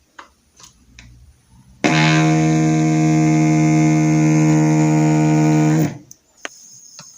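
Loud, steady electrical hum from a CRT television: one unchanging buzzing tone with many overtones. It starts abruptly about two seconds in and cuts off about four seconds later. Faint clicks come before it.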